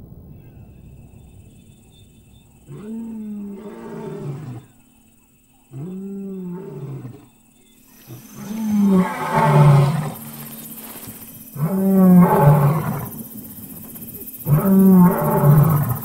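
Lion roaring: five long calls about three seconds apart, each falling in pitch, the last three louder than the first two.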